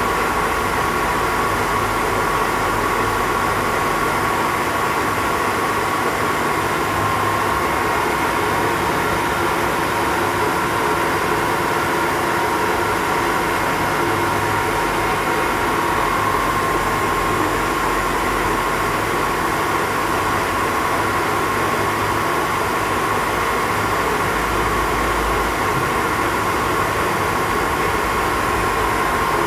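Lagun FTV-2 CNC knee mill running a program, its table axes moving: a steady machine hum and noise with a high whine that wavers slightly in pitch.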